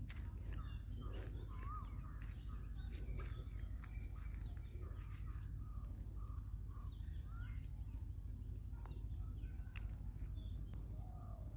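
Several small birds chirping and calling on and off in short whistled notes, over a steady low rumble.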